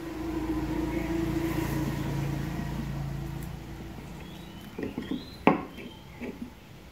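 A motor vehicle's engine hum swells and fades as it passes. Then come a few sharp clicks and knocks as the ball and strips are handled on the wooden board, with one sharp click near the end the loudest.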